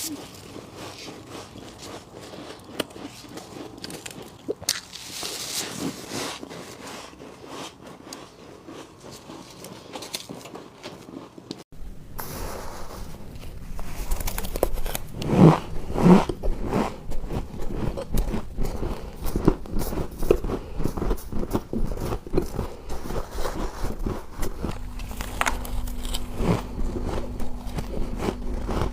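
Freezer frost ice being bitten and chewed close to the microphone: a string of crisp crunches and crackles. About twelve seconds in the sound changes abruptly and gets louder, with two sharp, loud bites soon after.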